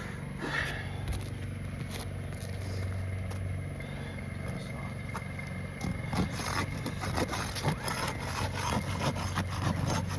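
An old asphalt roof shingle being pried loose, with a burst of sharp crackling and scraping from about six seconds in as the brittle shingle tears and comes up. A steady low hum runs underneath.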